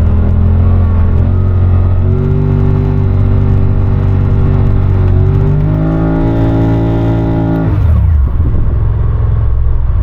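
UTV engine running hard under load, its pitch climbing in steps, then the revs dropping away sharply about eight seconds in as the machine bogs down. Afterwards the UTV sits high-centred on its frame in snow: it did not have enough speed coming into it.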